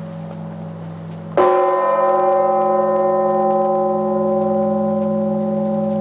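A 7,150 kg church bell struck once about a second and a half in, its many tones ringing on and fading slowly. The low hum of the previous stroke is still sounding underneath.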